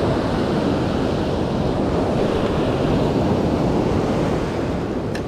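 Surf waves breaking and washing up the sand at the water's edge, a steady rushing with wind on the microphone. A short click near the end.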